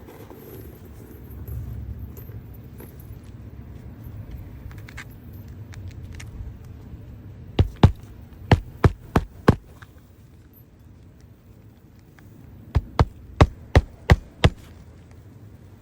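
A low steady hum, broken by two quick runs of sharp knocks, about six each, the first about halfway through and the second a few seconds later.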